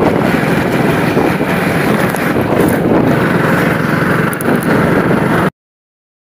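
Wind rushing over the microphone with the engine and road noise of a moving motorbike, steady throughout, then cut off abruptly to silence near the end.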